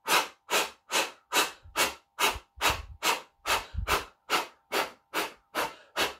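A woman blowing short, sharp puffs of air through pursed lips in a steady rhythm, about two and a half a second, some fifteen in a row. It is a diaphragm warm-up for singing.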